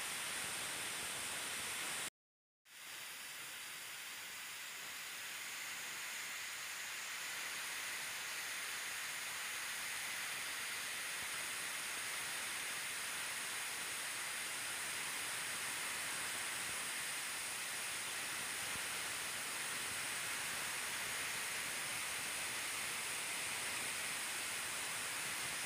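Steady hiss with no other sound. About two seconds in it cuts out completely for half a second, then swells back over the next few seconds.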